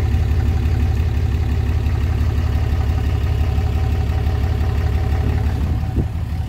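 Engine of a straight-piped 2015 Ram 3500 pickup idling, a steady deep, fast pulsing from the open exhaust.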